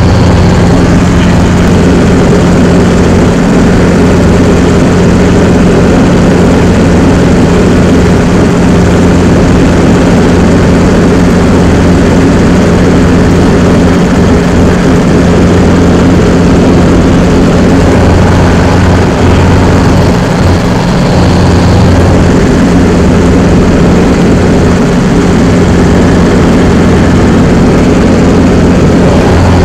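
Helicopter engine and rotor running in steady flight, heard from inside the cabin as a loud, constant drone with a deep hum.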